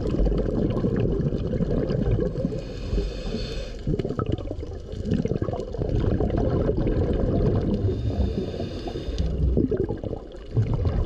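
Underwater audio of scuba breathing: bubbling, gurgling exhalations with a hissing regulator inhale about two seconds in and again around eight seconds.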